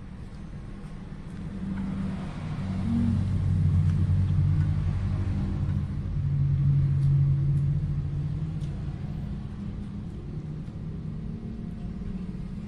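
Low engine rumble of a motor vehicle, swelling louder over a few seconds in the middle and then slowly fading.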